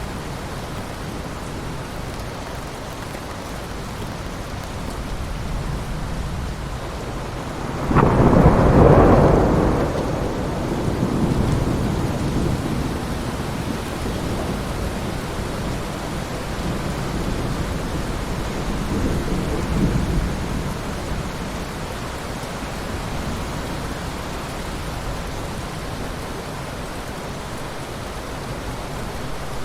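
Steady heavy rain. About eight seconds in, thunder breaks suddenly and rolls off over several seconds, and a softer rumble swells again around two-thirds of the way through.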